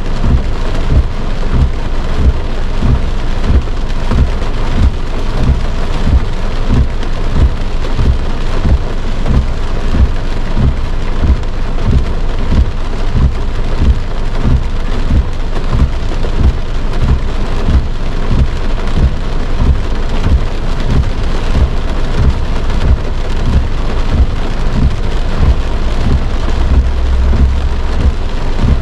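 Heavy rain drumming on a car's roof and windshield, heard from inside the cabin: a steady, loud patter with a constant run of deep thuds from big drops. A low hum swells briefly near the end.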